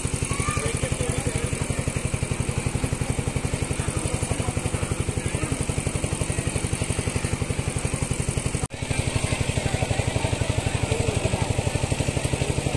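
A small engine running steadily at constant speed with a rapid, even beat. The sound drops out for an instant about nine seconds in, then the engine carries on.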